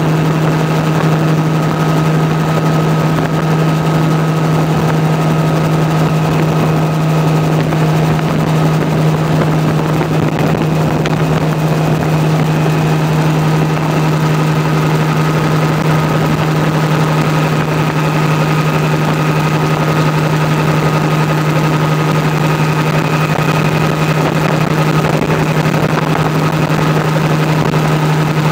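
Small helicopter in flight, heard from inside the cabin: a loud, steady drone of engine and rotor with a deep constant hum and a fainter higher whine above it.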